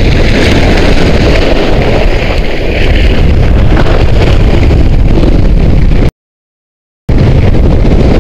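Loud, steady wind rush on the microphone of a camera moving fast downhill, cutting out completely for about a second near the end.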